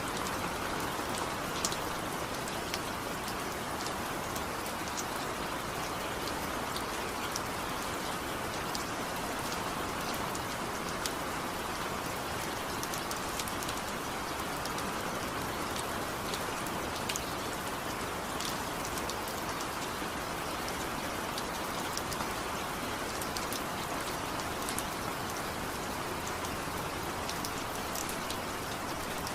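Steady rain falling, with individual drops ticking sharply on a surface here and there above the even hiss.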